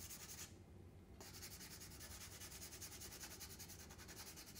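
Faint scratchy rubbing of a paper blending stump being spun and rubbed back and forth on sandpaper, sanding its tip into a smooth cone. The rubbing breaks off briefly about half a second in, then resumes.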